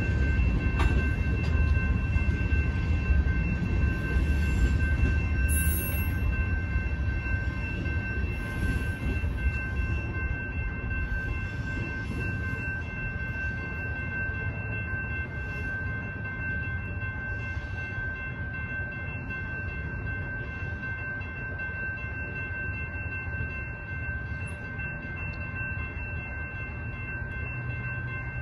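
Freight train tank cars rolling over the rails as the end of the train passes, the low rumble fading away after about ten seconds as the train moves off. A grade-crossing warning bell rings steadily throughout.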